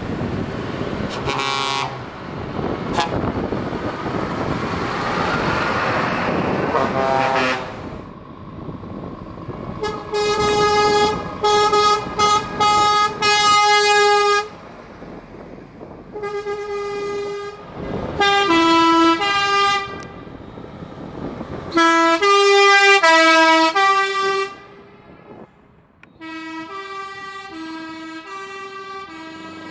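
A truck's diesel engine and exhaust passing close, then truck air horns sounded over and over: several long held blasts, followed by short notes that step back and forth between pitches like a tune.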